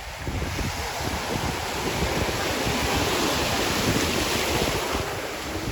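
Ocean surf breaking and washing in, with wind buffeting the microphone. The wash swells about two seconds in and eases again near the end.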